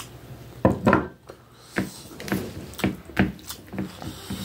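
A glass bowl knocked down onto a table twice in quick succession about a second in. A bare hand then mixes and squeezes rice with gravy on a plate, making a string of wet squishes and light taps.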